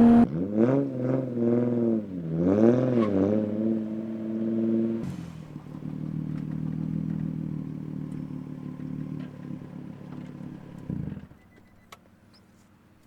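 Straight-piped 3.5-litre V6 (VQ35DE) exhaust of a 2004 Infiniti G35: the revs rise and fall several times, then the engine settles to a steady idle. It cuts off abruptly about eleven seconds in, as the engine is switched off, leaving a few faint clicks.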